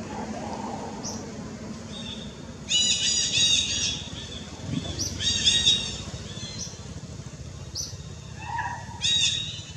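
High-pitched animal chirping calls: three loud bursts of quickly repeated short notes, with a few fainter single chirps between them.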